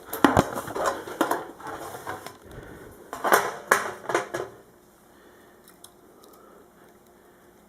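Clicks, clatter and rustling of hand tools and a roll of electrical tape being handled, for about four and a half seconds.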